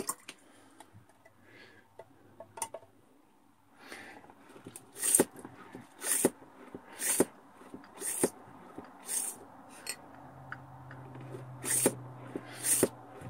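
A Survivor Filter Pro hand-pump water filter being pumped. About four seconds in, after a few light clicks of handling, it starts a steady rhythm of roughly one stroke a second, each stroke a short sharp burst of sound as liquid is forced through the filter.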